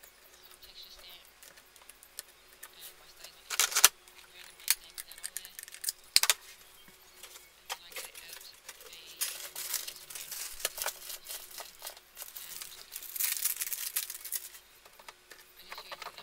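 Paper and craft supplies handled on a tabletop: paper rubbed and rustled under the hands, two sharp clicks a few seconds in, and longer spells of scratchy rustling in the second half.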